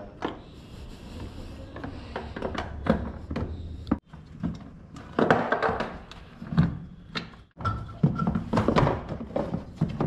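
Irregular knocks, thunks and clatter of hard plastic as the cabinet and base panels of an LG semi-automatic washing machine are gripped and shifted, with a few louder knocks.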